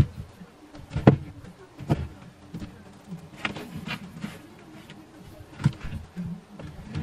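Purses and bags being handled and shifted on a closet shelf: scattered knocks and rustling as items are moved about.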